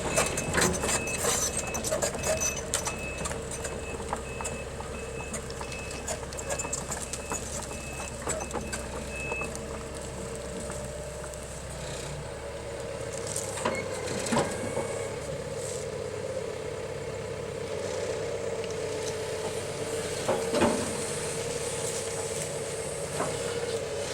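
Heavy machine's engine running, its backup alarm beeping steadily for roughly the first nine seconds, with scattered knocks and clanks.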